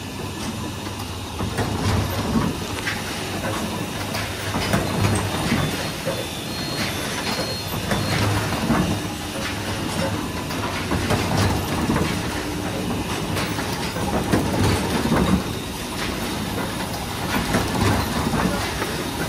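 Nebiolo printing press running, a steady mechanical clatter of clicks with a heavier stroke repeating about once every second and a quarter.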